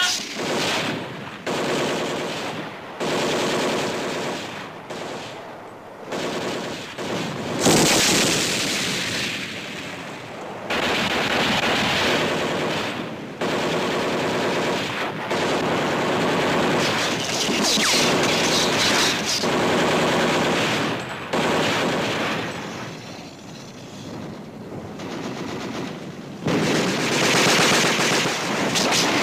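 Machine-gun fire in long rapid bursts of several seconds each, with short pauses between them and a single loud bang about eight seconds in.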